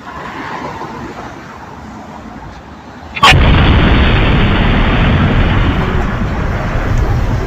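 Street traffic, then a sharp click about three seconds in and a sudden loud rushing noise that stays loud, as a double-decker bus passes close to the phone and overloads its microphone.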